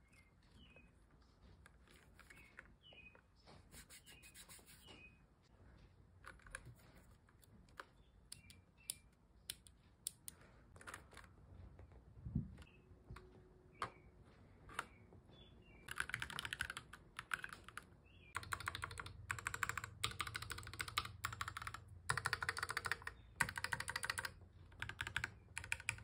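Keychron Q11 split mechanical keyboard: scattered clicks and a low knock about twelve seconds in as its halves are handled and set down. Then, from about sixteen seconds in, rapid keystrokes in bursts with short pauses, the clack of its hot-swappable mechanical switches.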